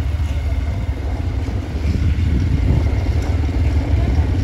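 Motorcycle riding along a street: a steady low rumble of the engine mixed with wind buffeting the microphone.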